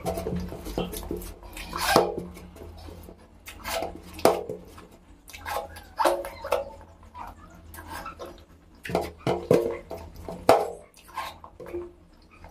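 Close-miked eating sounds: wet chewing and lip smacks, with fingers scooping curry-soaked rice off a plate and being licked, in short irregular bursts every second or so over a low steady hum.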